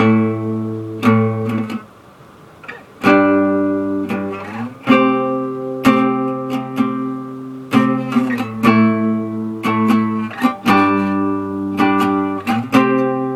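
Guitar strummed in ringing chords, about one strum a second with a short break about two seconds in, the chords changing along the way through an A minor, G, C progression.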